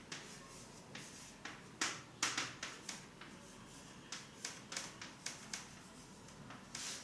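Handwriting: an irregular series of about a dozen short, scratchy strokes and taps as an answer is written out.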